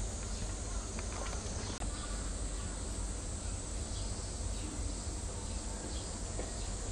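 Steady outdoor background noise: a low rumble with an even hiss, faint insect sound and a few small clicks.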